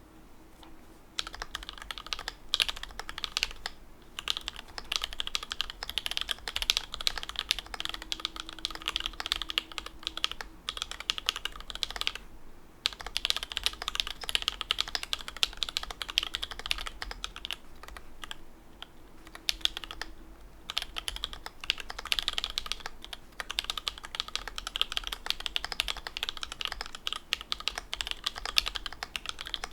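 Mechanical keyboard typed on at a steady quick pace: an Alais kit with lubed and filmed C3 Tangerine linear switches, a carbon fibre plate and dye-sub keycaps. Typing starts about a second in and stops briefly a few times.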